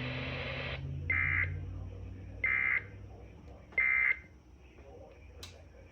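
Emergency Alert System end-of-message (EOM) signal: three short, identical bursts of warbling digital data tones about 1.3 s apart, marking the close of the flood warning broadcast. Weather-radio hiss cuts off under a second in, before the first burst.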